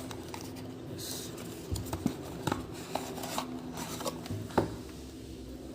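Hands working a USB Type-C cable out of its cardboard box and packing. There is a short rustle about a second in, then scattered scrapes and a few sharp clicks.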